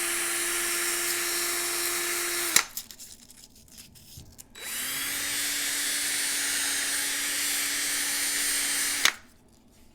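Cordless drill spinning a diecast toy axle held against sandpaper to clean off rust: a steady motor whine with a sanding hiss. It stops with a click after about two and a half seconds, starts again about two seconds later a little lower in pitch, and stops with another click near the end.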